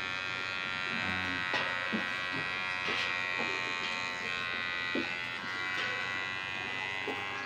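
Electric hair clipper buzzing steadily as it cuts short hair low on the nape, set to zero, with a few brief ticks along the way.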